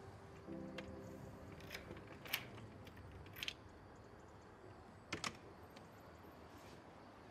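Faint sustained music notes fading out, then a few scattered sharp small clicks and taps, the loudest about two seconds in, over quiet room tone.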